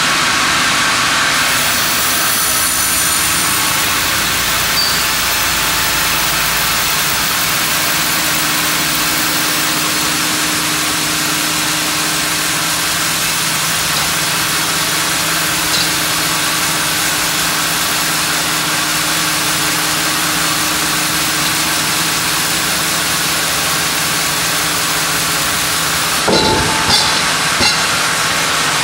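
Large vertical band sawmill running steadily as its carriage feeds a monkeypod (rain tree) log through the blade, a loud, even machine noise with a constant hum. A few short knocks come near the end.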